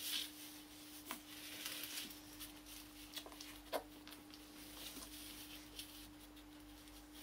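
Faint rustling and small soft clicks from Akita puppies nursing and wriggling against their mother, over a steady low hum.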